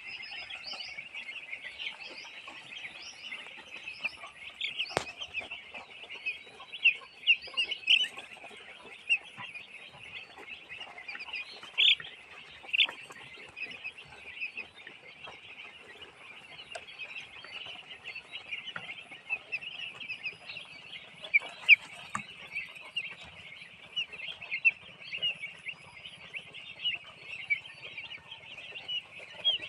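A large flock of broiler chickens calling continuously, a dense chorus of many overlapping high cheeps and clucks, with a few sharp clicks standing out.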